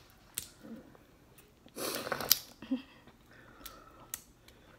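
Seafood shells being cracked and peeled by hand: a few scattered snaps and clicks, with a longer crackling burst about two seconds in.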